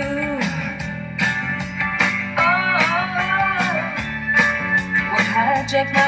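Background music: a guitar-led song with a steady drum beat and some bending, sliding notes.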